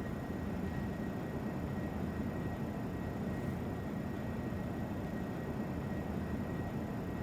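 Steady background noise, strongest in the low range, with a faint steady high tone running through it.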